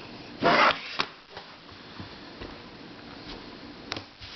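Handling noise between puzzles: a short rustling hiss about half a second in, then a few light clicks as plastic puzzles are picked up and set down, over quiet room tone.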